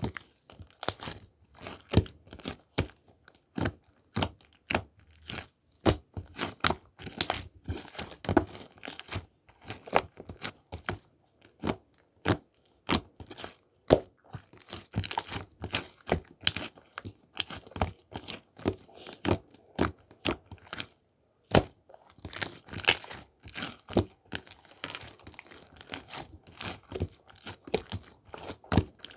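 Dense, irregular crinkling, crackling and tearing sounds made of many sharp clicks, with brief pauses now and then.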